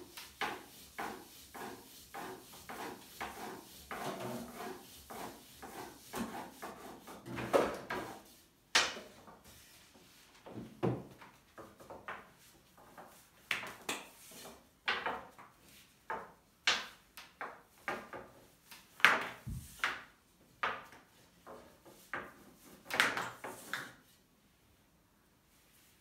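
Long thin wooden rolling pin rolling and knocking on a glass tabletop, with hands pressing and smoothing yufka dough: a run of irregular knocks and rubbing, dense at first, then sharper knocks spaced a second or so apart, stopping shortly before the end.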